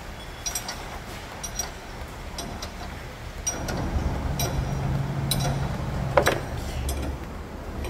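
Repair-shop background: scattered light clicks and taps, with a low steady machine hum coming in about halfway through and fading near the end.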